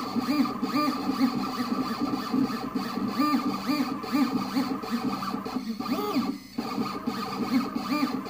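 Stepper motors of a Shapeoko 3 CNC machine whining as it plots hatch lines with a marker, the pitch rising and falling with each short back-and-forth stroke. The motors pause briefly about six seconds in.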